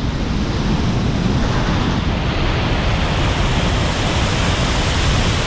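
Steady, loud rushing of whitewater pouring over a river waterfall drop.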